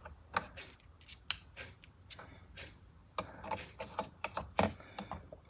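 Small metal clicks and taps from handling a ratchet screwdriver handle and its hex-drive bits, scattered and irregular, coming more often in the second half.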